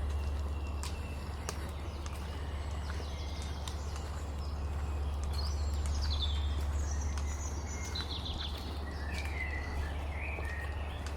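Several songbirds singing at once in the dawn chorus, a mix of chirps and quick trills, over a steady low rumble.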